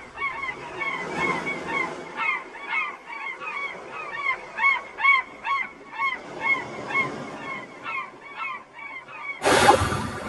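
Seagulls crying, many short arching calls in quick succession. Near the end a loud sound cuts in as music begins.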